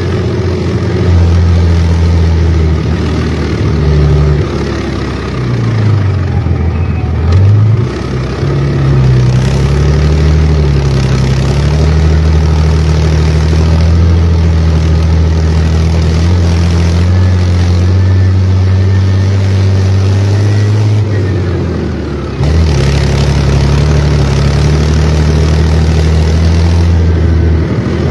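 An engine running steadily, its pitch dipping and coming back up twice, about six seconds in and again about twenty-two seconds in.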